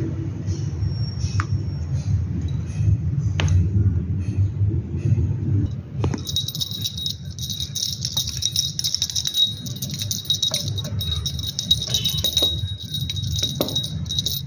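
Small bell jingling continuously from about six seconds in, with a few scattered ticks before it, over a steady low rumble.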